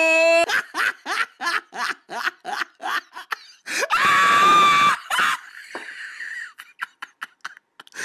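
A person laughing hard in quick breathy pulses, about five a second, with a high squeal at the start and a louder shriek of laughter about four seconds in.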